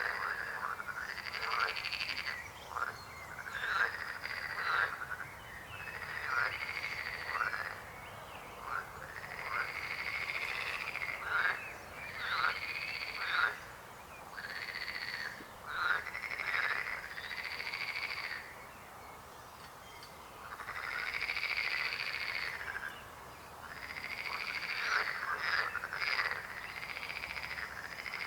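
Frogs croaking in a chorus, one call after another every second or two, some overlapping.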